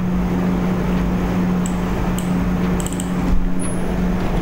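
Steady low electrical hum and hiss, with a few light clicks in the middle: keys being typed on a computer keyboard.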